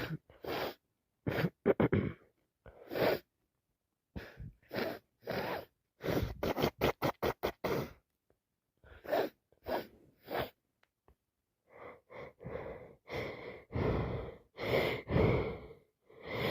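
Women sneezing again and again with flu: short sneezes and sharp gasping intakes of breath in quick succession. There is a fast run of about eight in a row midway, and longer ones toward the end.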